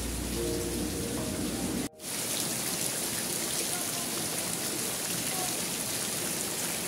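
Heavy rain falling steadily on wet concrete, an even hiss of drops, with a brief break about two seconds in before it carries on.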